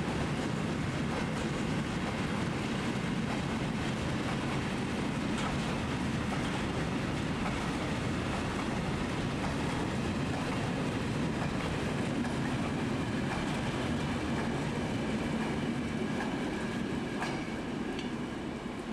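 Freight train of covered goods wagons rolling past at speed: a steady rumble with wheels clattering over the rail joints and a faint high wheel squeal in the second half, fading away near the end as the last wagon passes.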